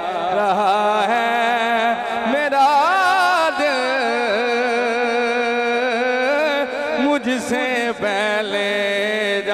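A man's voice singing a naat in long, wavering melismatic notes that glide up and down, over a steady drone.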